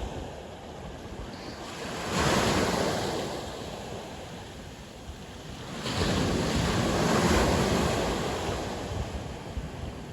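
Sea waves breaking on the shore, two waves about four seconds apart, each rising quickly and washing out over a few seconds, with wind noise on the microphone.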